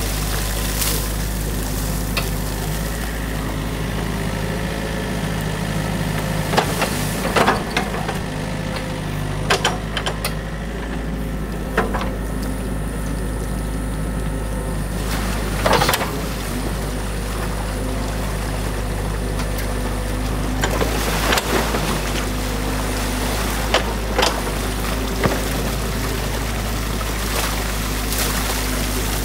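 A New Holland mini excavator's diesel engine running steadily while its bucket digs sticks and mud out of a beaver dam in a stream, with scattered sharp cracks and knocks of branches and the bucket, over the rush of flowing water.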